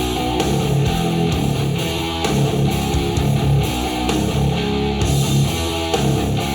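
Instrumental music with strummed guitar, played back through a pair of powered stereo speakers and picked up by room microphones.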